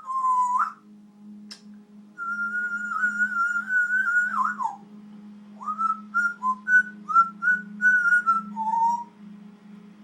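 Congo African grey parrot whistling. A short note opens, then a long wavering note slides down at its end, then a run of short chirpy whistled notes finishes on a lower note.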